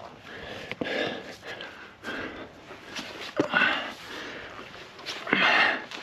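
A person breathing hard and puffing from exertion after a strenuous climb, with a few loud exhales near the end and some short knocks in between.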